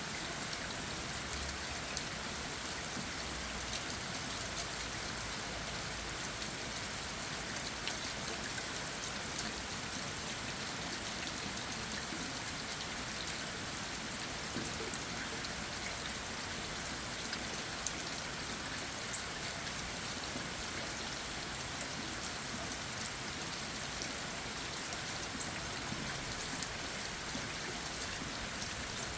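Steady rain falling on leaves and ground, an even hiss with many small raindrop taps scattered through it.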